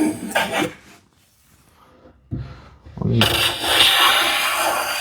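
Hand plane shaving along the edge of a solid cherry panel: one stroke trails off in the first second, a low knock comes about two seconds later, then another long cutting stroke starts about three seconds in.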